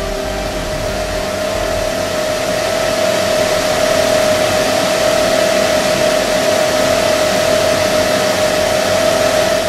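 A fan or blower motor running steadily: an even rushing hiss with a steady whine through it.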